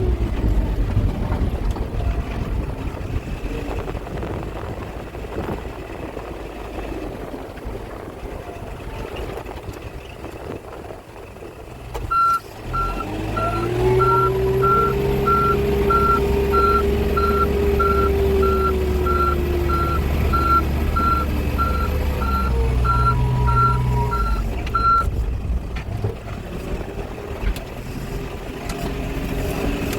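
Backhoe loader's diesel engine running. Partway through, the engine revs up and the reversing alarm beeps about twice a second for roughly thirteen seconds, then stops while the engine keeps running.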